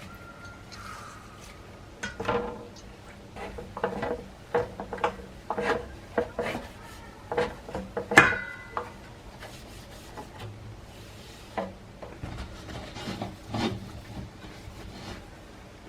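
Containers and dishes being handled and set down, with irregular knocks, clinks and rubbing, and one louder ringing clink about eight seconds in.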